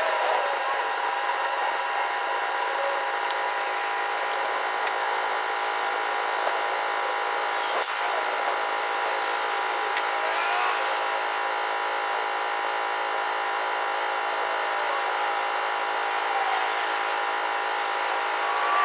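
Steady mechanical drone, an engine-like running sound made of a stack of even tones that holds without a break.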